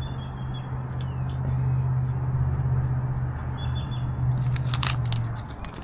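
A steady low engine hum that stops shortly before the end, with two brief high squeaks and clicking, rustling handling noise near the end.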